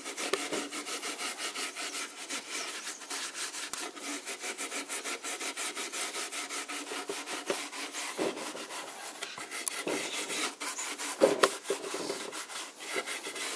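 00 steel wool scrubbing back and forth over old shellacked timber in quick, even strokes, several a second. It is working pale boiled linseed oil into the wood and lifting the old, scaly shellac.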